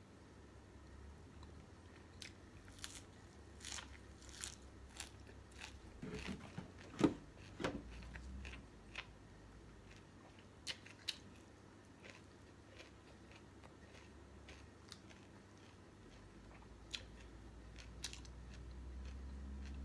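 Close-up eating sounds: chewing and crunching on steamed fish and fresh herbs, with scattered short sharp clicks and a louder knock about seven seconds in.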